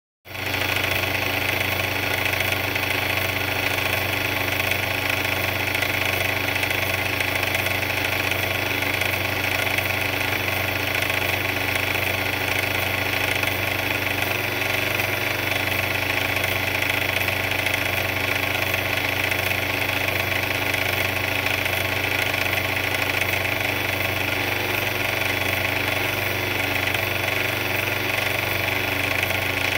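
A big mixer running steadily: a continuous, even machine drone that does not change.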